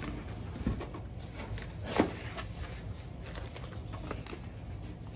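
Cardboard accessory box being opened and its contents handled, with papers and plastic bags rustling and scattered light clicks. One sharp knock about two seconds in is the loudest sound, over a low steady background hum.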